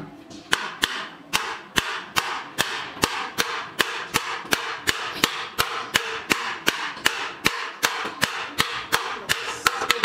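Hand hammer striking the steel hub of a welded four-arm reel assembly seated on its shaft: a steady run of sharp metal-on-metal blows, about three a second.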